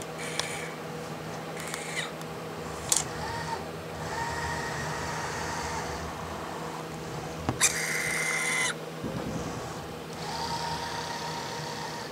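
CRS F3 industrial robotic arm moving: its joint motors whine in short stretches of a second or two, with sharp clicks of the gripper taking and setting dominoes, over a steady electrical hum. About seven and a half seconds in, a click is followed by a louder hissing whine lasting about a second.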